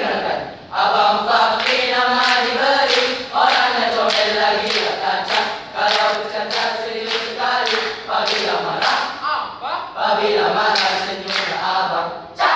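Choral speaking by a large group of schoolboys: many voices chanting rhythmically in unison, with sharp accented syllables about twice a second.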